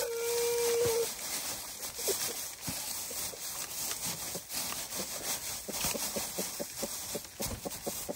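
A held animal call that ends about a second in, then a run of short knocks or taps that grows quick and even, about four a second, near the end.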